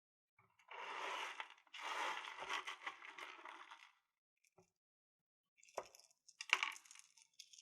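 Crystals clinking and rattling as they are handled for about three seconds, then two light taps a little under a second apart.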